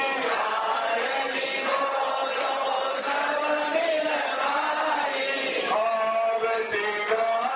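Chanting with music behind it: a steady flow of held, sung notes.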